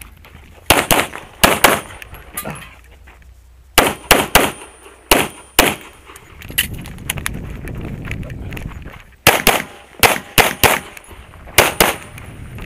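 Pistol gunshots fired in quick strings, mostly as fast pairs, with a gap of a few seconds in the middle before more shots follow.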